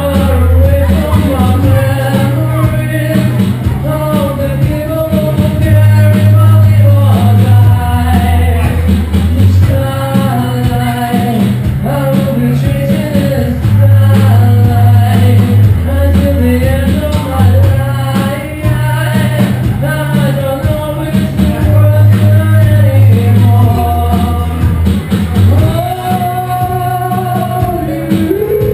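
Live rock band playing a song: a man singing lead over electric guitars, bass, drums and keyboard, with a heavy bass line repeating in phrases of about two seconds.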